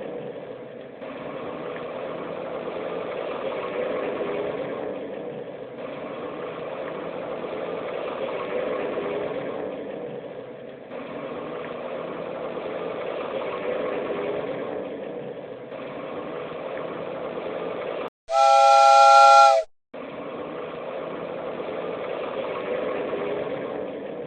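Cartoon vehicle sound effects: a steady engine-like running noise that swells and dips about every five seconds, then a loud steam-train whistle blast lasting about a second and a half, several tones together, near the end.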